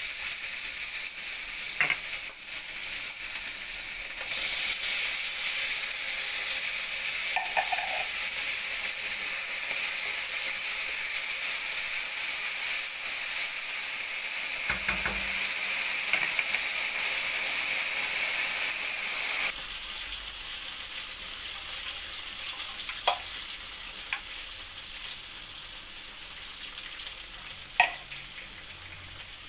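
Diced bacon, garlic and cream frying in a nonstick pan while being stirred: a steady sizzle that drops suddenly to a quieter level about two-thirds of the way through, with a few sharp taps of the utensil on the pan, two of them near the end.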